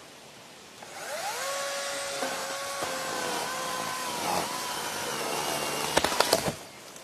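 Electric chainsaw motor spinning up with a rising whine about a second in, then running at a steady high whine. Near the end come a few sharp cracks before it cuts off suddenly.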